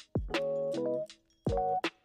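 Background music: keyboard chords stepping from one held chord to the next over a drum beat, breaking off briefly about a second in and again near the end.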